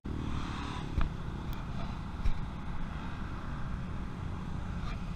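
Low rumble of wind on the camera's microphone over a steady hum of distant vehicle engines, with two light knocks, about a second in and again past two seconds.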